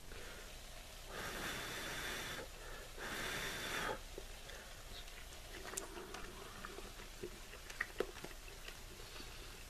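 A person chewing a mouthful of food, with two long noisy breaths out, each about a second long, in the first four seconds, then a few faint clicks.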